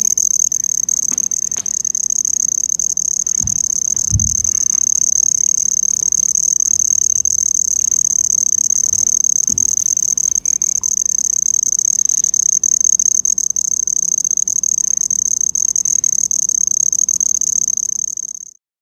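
An insect singing a steady, high-pitched, cricket-like trill without a break, cutting off suddenly near the end.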